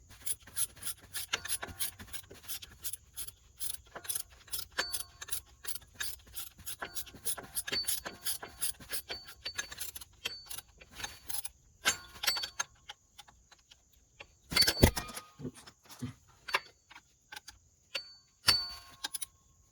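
Ratchet wrench clicking in quick runs as the 13 mm mounting bolt of a power steering pump is tightened, with a couple of louder knocks near the end.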